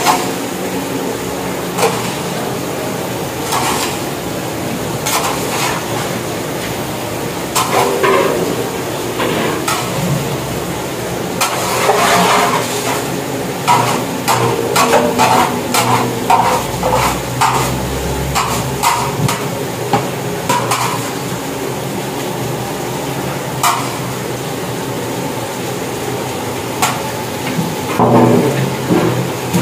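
Metal spoon scraping and knocking against a large metal cooking pan as thick carrot halwa is stirred and lumps of khoya are broken up. The knocks come irregularly, with a quick run of them about halfway through, over a steady background hum.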